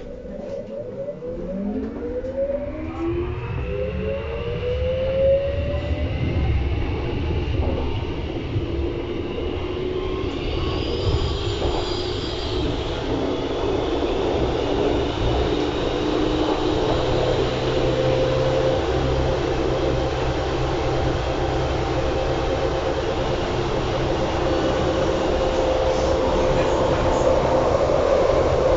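U-Bahn train heard from inside the car as it accelerates away: the traction motors whine in several tones that rise in pitch over the first few seconds. The steady running noise of wheels on rail then grows gradually louder, with a held hum underneath.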